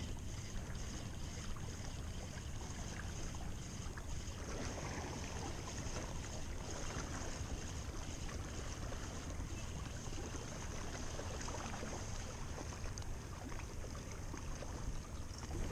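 Steady outdoor noise of wind on the microphone and water lapping at the sea's edge, heaviest in the low end, with no clear single event standing out.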